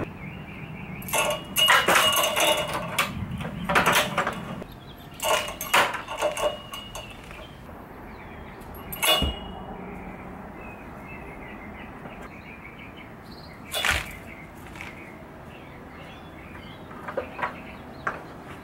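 Sharp knocks and metal rattles from sledgehammers tethered on elastic tool lanyards being dropped from a stepladder and jerked to a stop, with two heavier thuds about nine and fourteen seconds in.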